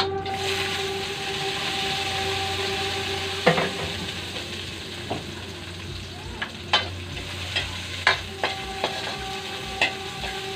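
Chopped aromatics dropped into hot oil in a steel wok, sizzling, then a metal spatula stirring and clinking against the wok, sharp ticks about once a second from around six seconds in.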